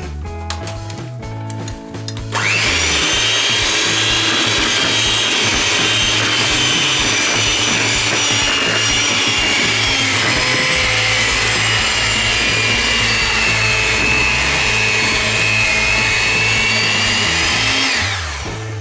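Vitek electric hand mixer switched on about two seconds in, its beaters running steadily through flour and egg-water batter in a plastic bowl. Its whine sinks slowly in pitch, lifts briefly and then cuts off near the end.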